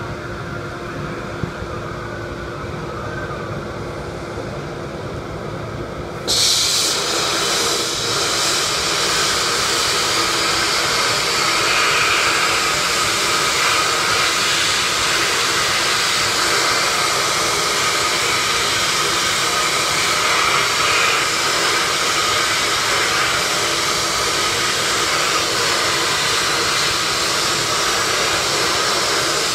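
Bead-blasting cabinet gun spraying compressed air and blast media onto an aluminium carburettor riser: a loud, steady hiss that starts suddenly about six seconds in. Before that there is a quieter steady rushing with a faint hum.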